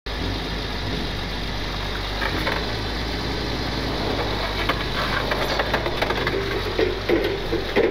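Engine of a propane-fuelled Clark forklift running steadily as it is pulled out of soft sand on a kinetic recovery rope, with scattered knocks and clunks in the second half as it comes free.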